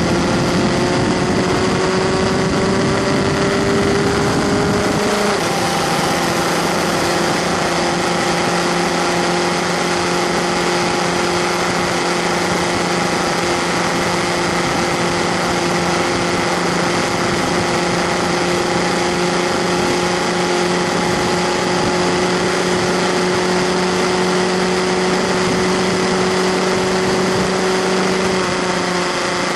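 Onboard sound of a Skip Barber Formula 2000 race car's 2.0-litre engine at full throttle. The revs climb, fall sharply on an upshift about five seconds in, then hold high and steady, rising slightly, on a long flat-out pull. The note drops about a second before the end as the throttle comes off.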